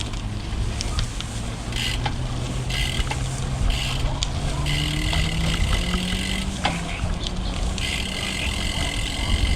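A motor vehicle's engine rising in pitch as it speeds up, over a steady low rumble.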